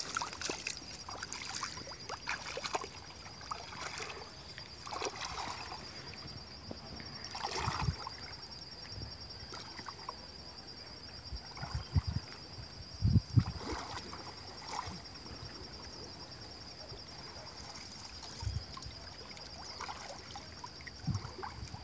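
Water sloshing and splashing as a person wades through a shallow muddy lagoon and sweeps a wooden-framed fishing sieve through the water, with a few low thumps near the middle. A steady high insect trill runs underneath.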